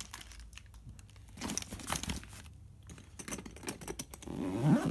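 Rustling and crinkling as items are handled and shifted inside a soft rolling tote bag's main compartment, with scattered light clicks and knocks.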